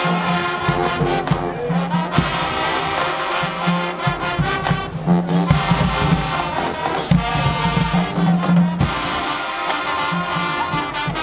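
Marching band playing loud brass music over drums, the low brass sounding a string of held notes that start and stop every second or two.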